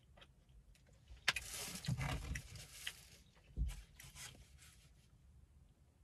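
Rustling and scraping of fast-food paper packaging being handled, starting about a second in, with dull bumps around two seconds and three and a half seconds in.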